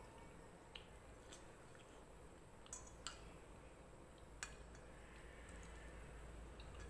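Fork and spoon clinking and scraping on a ceramic plate while cutting food: about five faint, separate clinks in the first four and a half seconds.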